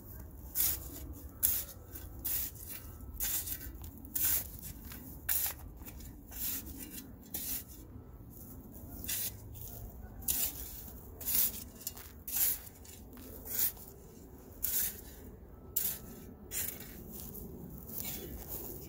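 Shovel blade scraping into and turning loose, amended planting soil: a run of short gritty scrapes, a little more than one a second and unevenly spaced, as the mycorrhiza is mixed into the soil.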